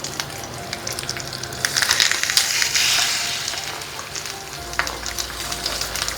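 Marinated king fish pieces and curry leaves sizzling and crackling in hot oil on a tawa, the sizzle swelling louder for a couple of seconds about one and a half seconds in as fresh fish meets the oil.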